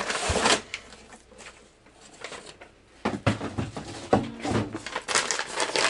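Paper and cardboard rustling as an envelope is handled and a letter pulled out of it, with a dense rustle at the start, a lull, then a run of short rustles and small handling clicks.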